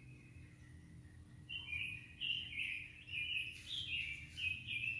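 A bird singing: a quick run of short chirping notes that step up and down in pitch, starting about a second and a half in, over a low steady hum.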